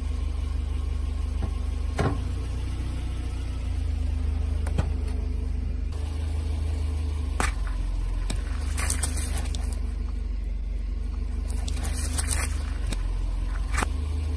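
Car engine running low and steady, with scattered sharp cracks and snaps as objects are crushed under the tyres, some coming in quick clusters.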